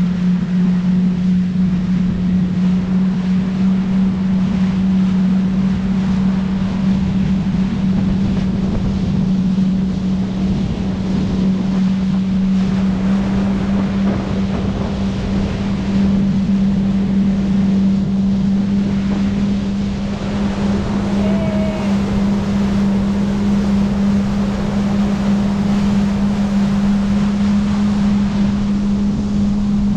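Jet ski engine running at a steady cruising speed: a constant drone whose pitch creeps slightly upward, over water and wind noise.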